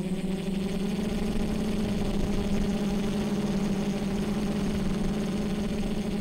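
Quadcopter's electric motors and propellers running with a steady hum; the pitch rises a little right at the start and then holds.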